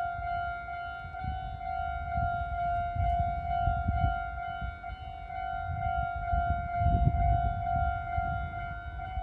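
Japanese railway level-crossing warning bell ringing steadily in its repeating electronic "kan-kan" tone, with a low rumble swelling and fading beneath it twice.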